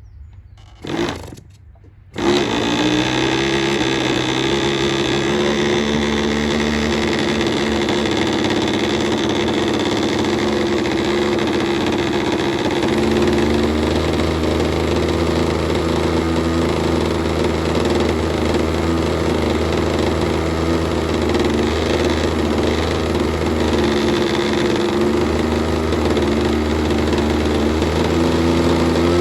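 Model aircraft engine of an RC Piper Cub, its first run in a long time. After a brief burst about a second in, it catches about two seconds in and runs steadily, with its note changing about halfway through.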